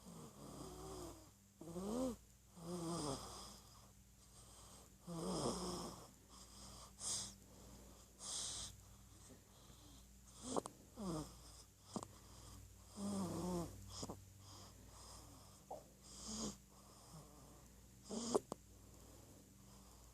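A one-month-old baby snoring in its sleep: irregular noisy breaths every second or two, many with a squeaky whistle that rises and falls in pitch.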